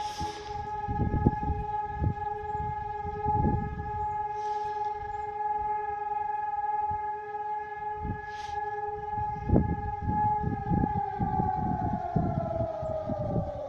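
Air raid and disaster alert siren sounding during a test: a loud steady tone held at one pitch, then winding down and falling in pitch from about eleven seconds in. Low irregular rumbling runs under it.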